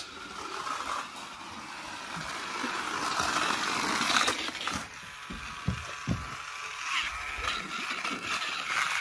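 Battery-powered toy car's small electric motor whirring as the car runs round a loop of flexible plastic track, swelling to its loudest about four seconds in. A few low knocks follow shortly after.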